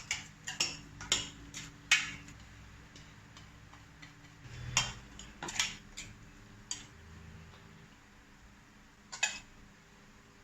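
Kitchen utensils clinking and knocking against dishes: a quick run of about five sharp clinks, then a few more around the middle and a last one near the end.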